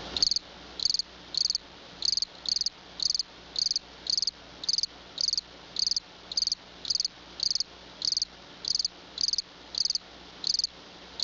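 Cricket chirping steadily, short high-pitched chirps repeating about twice a second.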